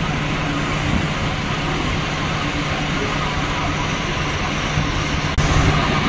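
Scania fire appliance's diesel engine running steadily with a constant low hum. The sound cuts abruptly and comes back slightly louder near the end.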